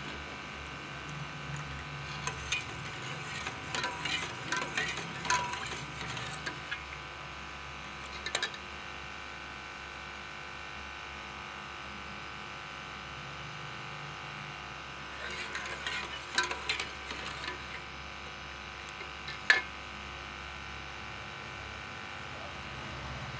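Steel ladle stirring and scraping against a metal pot of thin tomato ketchup that is being cooked down, in the first several seconds and again briefly later, with a sharp clink near the end. A steady buzzing hum runs underneath.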